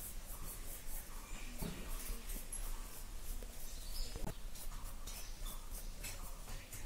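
Pencil lead scratching on drawing paper in quick, repeated shading strokes, several a second.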